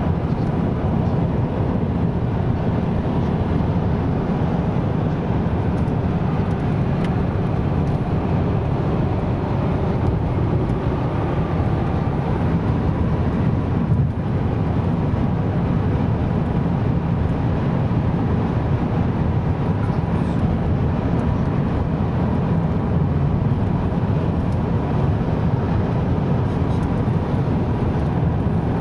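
Steady road noise heard inside a car cruising at motorway speed: tyres on the road and the engine running, with a faint steady whine on top.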